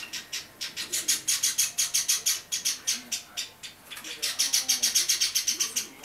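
Java sparrow chick calling: a quick series of short, high chirps, about six a second, in two long runs with a short break about three and a half seconds in.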